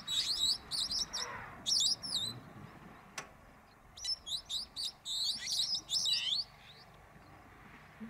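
Bird song: two runs of quick, sweeping high chirps, the first at the start and the second about four seconds in.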